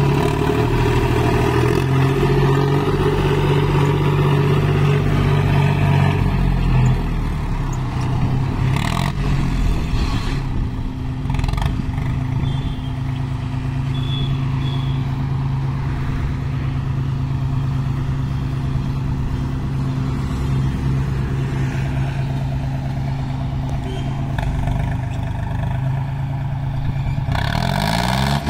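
John Deere 5036D tractor's three-cylinder diesel engine running steadily, with a couple of short knocks about nine and eleven seconds in, then revving up near the end.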